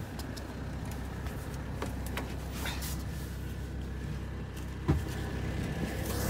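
Sherp amphibious ATV's diesel engine idling steadily, with a single sharp knock about five seconds in.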